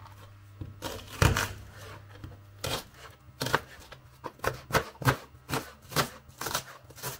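Kitchen knife chopping onion on a plastic cutting board: a couple of separate knocks, then from about halfway a run of quick, even cuts, roughly three a second.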